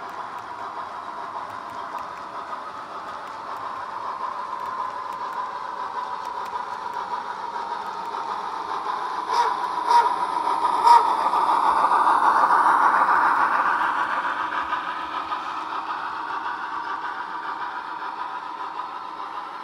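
S scale model freight train rolling along the track with a steady whine. There are three sharp clicks about nine to eleven seconds in, and then the sound swells to its loudest as the PRR L1 steam locomotive pushing at the rear passes, then fades.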